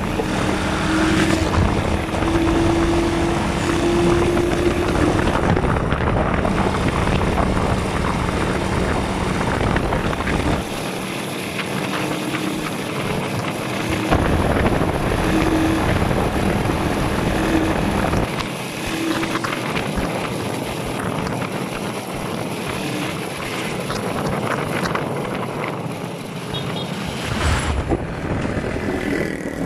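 Motorcycle engine running steadily while riding along a road, its note wavering slightly with the throttle, with wind rumbling on the microphone that comes and goes.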